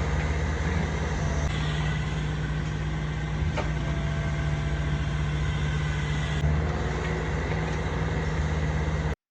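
Excavator diesel engine running steadily, with a single light tick about three and a half seconds in; the sound cuts off abruptly just before the end.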